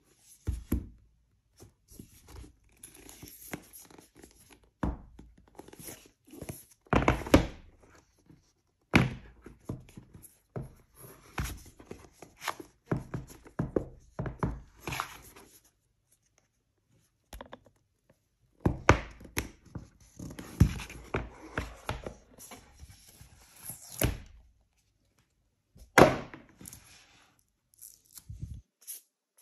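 Cardboard product box for an Apple Magic Keyboard being handled and opened by hand: a string of knocks and thunks of the box against hands and table, with rustling and scraping of the card between them and a few short pauses.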